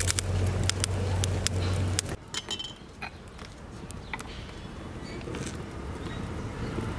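Wood fire crackling in a clay chulha as sticks are pushed into it, over a low rumble; it cuts off about two seconds in, followed by a quieter stretch of a few light clinks as a ceramic jar is lifted from among metal cups.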